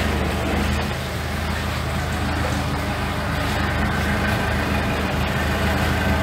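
Pasig River ferry boat's engine running low and steady as the boat comes alongside the landing, a continuous low drone.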